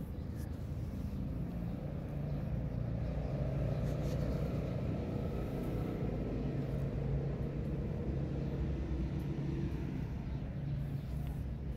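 Steady low rumble of a motor vehicle's engine running, with a few faint shifts in pitch.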